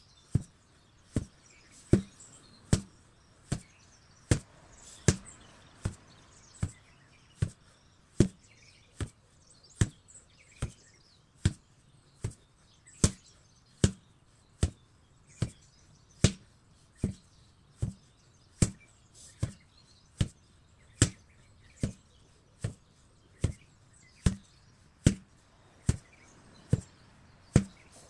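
An 8 kg sledgehammer striking again and again at an even pace, a little more than one blow a second.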